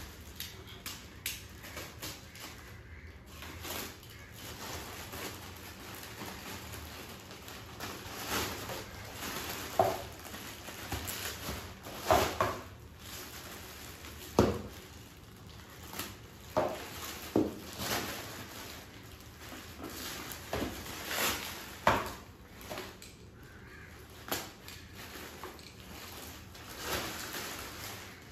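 A plastic courier bag being cut open and handled, then a plastic-wrapped item pulled out of it: irregular rustling and crinkling of plastic, with several louder crackles.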